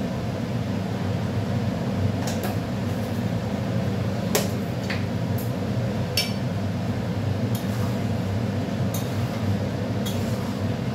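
A metal spatula stirring a thick curry in a metal kadai, clinking against the pan about seven or eight times, over a steady low hum.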